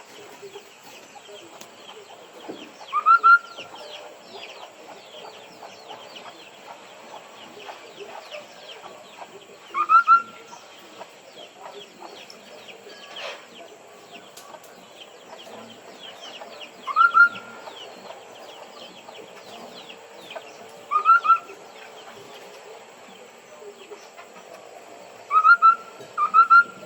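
Họa mi đất songbird giving its lure call: two quick rising whistles, repeated several times a few seconds apart, over faint chirping of other birds.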